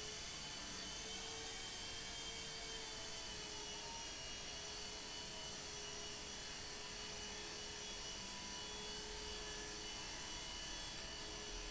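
Nine Eagles Solo Pro II mini electric RC helicopter in flight: its small motors and rotors give a steady high whine, the pitch wavering slightly as the rotor speed shifts.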